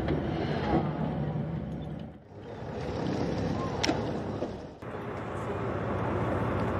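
Boat engine running steadily under wind noise, with faint passengers' voices; the sound drops out briefly twice.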